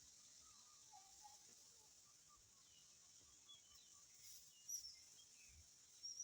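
Faint birds chirping, scattered short calls with a couple of sharper high notes near the end, over a steady high-pitched hiss of outdoor ambience.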